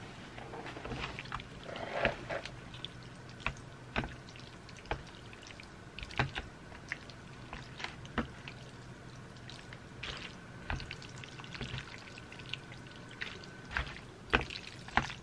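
Chopsticks stirring and lifting jjajangmyeon noodles through thick black bean sauce in a plastic delivery bowl. The sound is a sticky, wet squelching with frequent short clicks, a sound called pretty.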